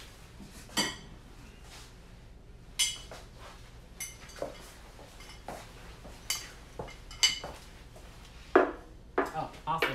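Dishes and cutlery being handled: a handful of sharp, ringing clinks spread out, then a quick run of knocks and clinks near the end.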